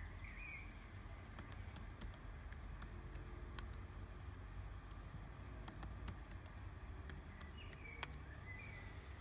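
Laptop keyboard keys clicking in quick, irregular runs as a login password is typed, over a steady low background rumble. A bird chirps briefly near the start and twice near the end.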